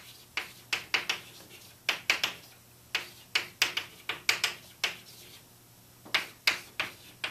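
Chalk writing on a blackboard: a quick, irregular run of sharp taps and short strokes as letters are written, with a break of about a second around five seconds in.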